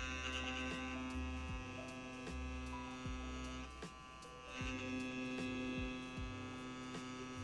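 CPTink Captain One wireless tattoo pen running with a steady, noisy motor buzz at a high setting. It drops away briefly about four seconds in, then runs again.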